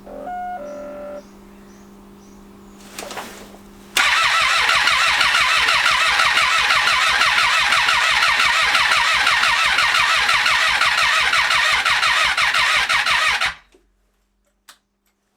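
2012 Triumph Street Triple 675R's three-cylinder engine cranked on the electric starter for about nine seconds, starting about four seconds in. It turns over with an even, rapid pulsing but never catches, then stops abruptly: a no-start.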